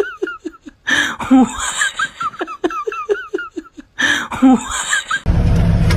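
A person laughing in quick repeated 'ha-ha' pulses, in three runs with short breaks. Near the end it cuts to a steady low vehicle engine rumble.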